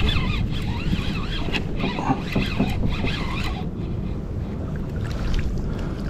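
Wind buffeting the microphone on a kayak out on the ocean, a steady low rumble, with water around the hull. Faint wavering high sounds come and go during the first half.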